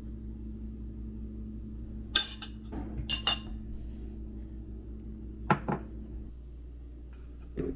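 Small plates, metal forks and a drinking glass set down on a kitchen counter: a few sharp clinks and clatters over a steady low hum that cuts off about six seconds in.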